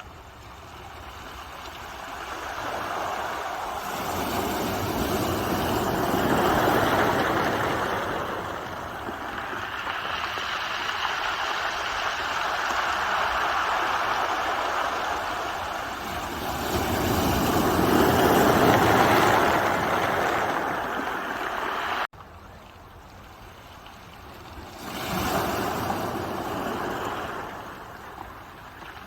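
Ocean waves breaking and washing up the shore, the surf swelling and falling away four times, with a sudden drop about two-thirds of the way through before the next wave comes in.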